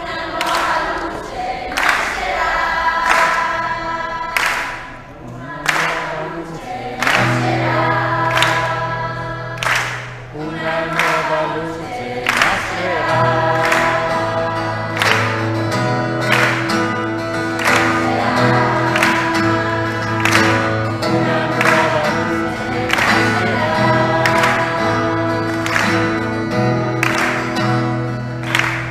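A group of young people singing a song together with guitar accompaniment, driven by a steady beat of sharp strokes. Low held notes join about seven seconds in.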